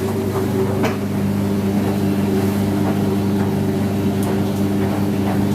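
IPSO 25 lb commercial washing machine running on a hot wash, its motor giving a steady even hum, with a few faint ticks.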